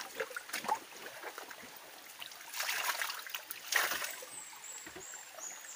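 Small shallow forest stream trickling over rocks, with scattered light clicks and a couple of short rustles about halfway through from handling a banana leaf and bowl.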